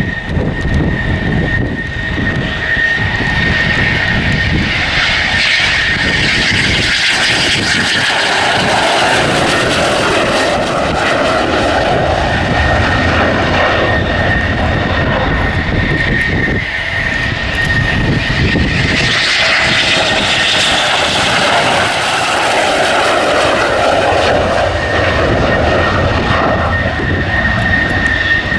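Eurofighter Typhoon's twin Eurojet EJ200 turbofans at landing power as the jet touches down and rolls out. A steady high whine runs over a rushing jet roar that swells and fades twice.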